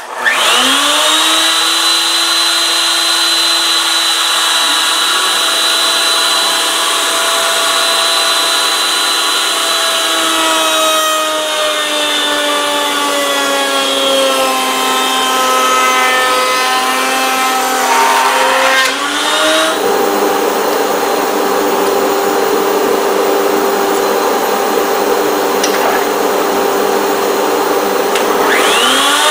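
Table-mounted router running at reduced speed with a 2-inch core box bit. It spins up with a rising whine, then its pitch sags and recovers as the bit cuts a cove profile into a mahogany handle blank. About two-thirds of the way through, the sound turns into a steadier, noisier whir, and near the end the motor starts to wind up again.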